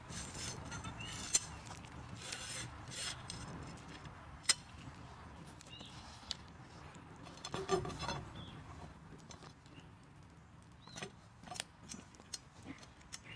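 Metal parts of an aluminium slingshot being handled during assembly: light clicks, knocks and clinks of aluminium rods and fittings against each other and the padded table, irregularly spaced, with a small cluster of them partway through.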